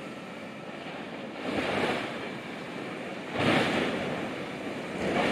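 Outdoor wind blowing in gusts, a rushing noise that swells louder about three times.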